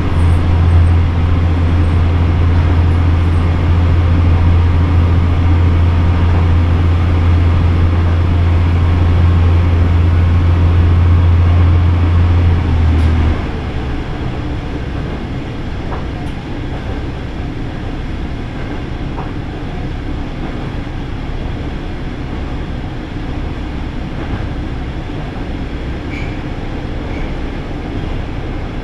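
Diesel railcar running through a tunnel, heard from inside the car: a loud, steady engine drone that drops away suddenly about 13 seconds in as the engine throttles back, leaving the quieter, even rumble of the train running on the rails.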